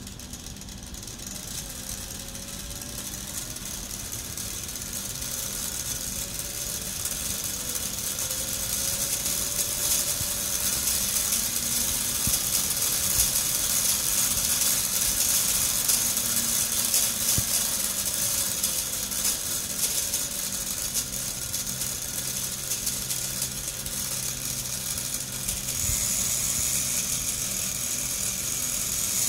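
Small brushed DC propulsion motor and gearing of a model race car spinning a wheel with no load, with a high-pitched whine. It grows louder over the first ten seconds or so as the speed setpoint is raised, and its pitch glides up and down as the speed controller changes the speed.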